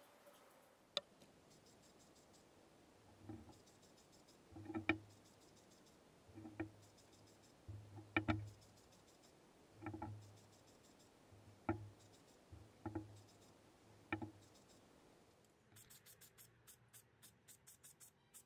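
Light knocks and taps as primed steel trolley jack parts are handled and set down on a newspaper-covered bench, about nine in all. Near the end an aerosol primer can is shaken, its mixing ball rattling about five times a second.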